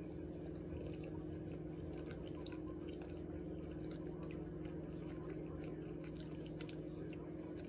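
Close-up chewing with many short, wet mouth clicks and smacks as a person eats barbecue with her fingers. A steady low hum runs underneath.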